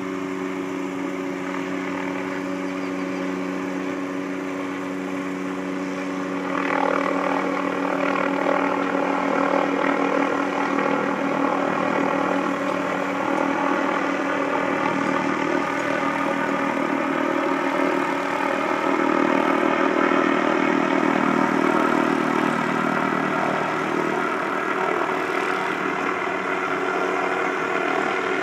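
Helicopter running steadily, with a droning engine and rotor that grows louder about six seconds in.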